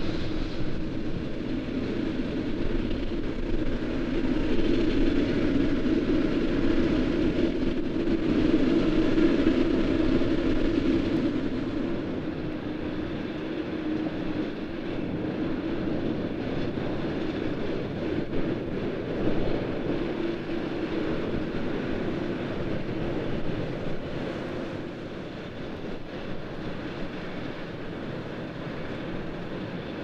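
Boeing 787-8 Dreamliner's jet engines running at taxi power, a steady drone that gets somewhat quieter after about twelve seconds.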